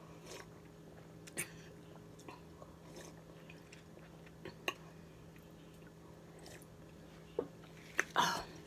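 Faint mouth sounds of someone drinking cola from a plastic cup: swallowing, then scattered small clicks and smacks of the lips and tongue, with one louder short noise about eight seconds in. A faint steady hum runs underneath.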